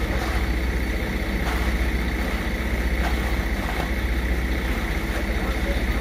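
Concrete mixer truck's diesel engine running steadily with a low rumble while concrete is discharged down its chute.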